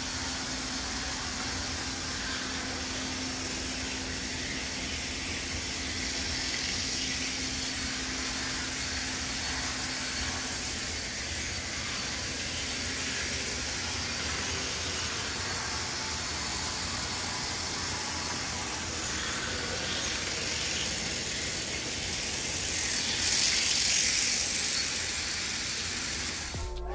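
A Bachmann HO-scale diesel locomotive pulling freight cars around a track oval: a steady running hum and rolling-wheel noise. It swells briefly near the end as the train passes close.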